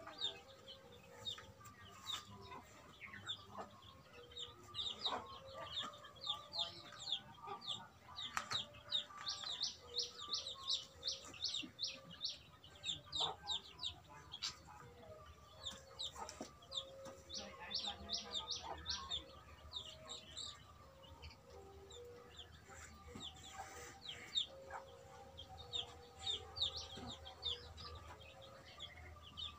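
Chickens clucking and chirping nearby: runs of short, quick, high calls, several a second, repeated throughout, over softer lower clucks.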